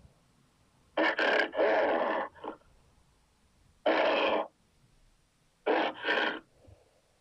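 Cartoon creature vocal effects: short, rough grunts and growls in three separate groups, two or three quick ones about a second in, a single one around the middle, and two more near the end, with silent gaps between them.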